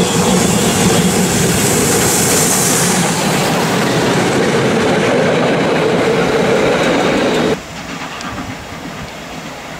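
Pt47 steam locomotive and its passenger carriages passing close by, with the loud, steady rumble and clatter of wheels on the rails. About three-quarters of the way in the sound drops suddenly to the quieter running of the train moving away.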